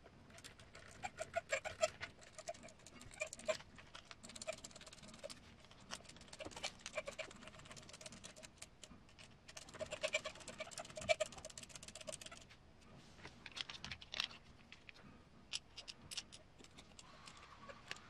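Small screws being turned by hand with a hex driver into plastic scale parts, with many light clicks and rattles of the parts being handled. In a few stretches a squeaky creak repeats as the screws turn.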